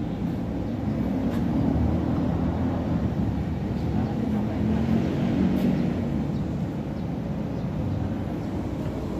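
A vehicle engine running nearby: a steady low rumble whose pitch wavers slightly.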